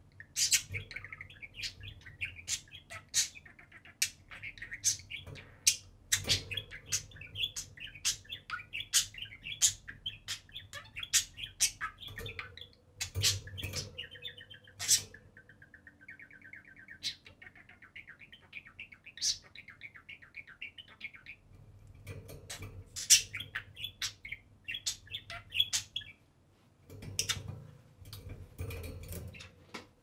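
A pair of budgerigars warbling and chattering, with frequent sharp chirps. Midway there is a fast, even run of ticking notes lasting several seconds, and a brief lull near the end.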